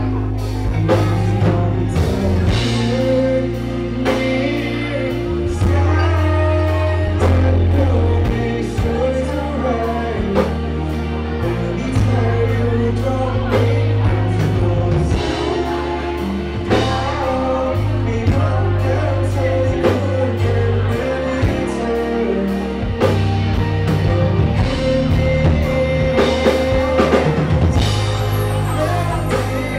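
A live band playing a pop-rock song, with a singer over a steady drum beat, bass and guitar.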